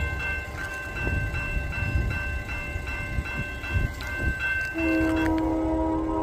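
A Union Pacific train rumbling past, with a high ringing tone pulsing about three times a second. About five seconds in, the locomotive's air horn begins one long blast, a chord of several notes that holds past the end.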